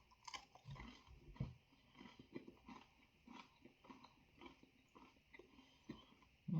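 Faint chewing of a mouthful of overcooked, rather hard chicken finger: many small irregular clicks, with a couple of louder soft thumps about one and one and a half seconds in.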